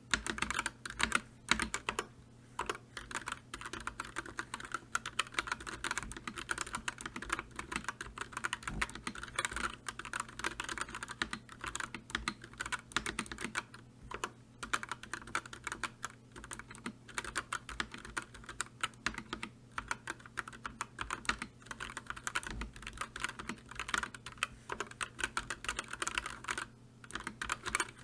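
Fast typing on a computer keyboard: a continuous stream of key clicks with short pauses about halfway through and near the end, over a faint low hum.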